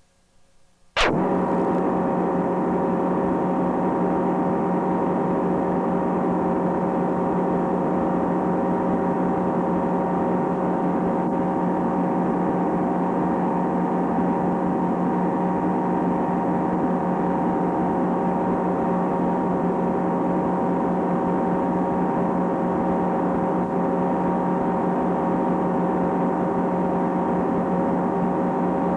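Twin Mercury outboard motors running steadily at constant throttle, a drone of several steady tones over wind and water noise. It cuts in suddenly about a second in.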